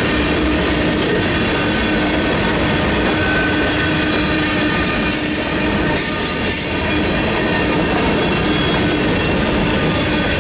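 Freight cars of a mixed freight train rolling past a grade crossing: a steady loud rumble and clatter of steel wheels on rail, with high-pitched wheel squeal about five to seven seconds in.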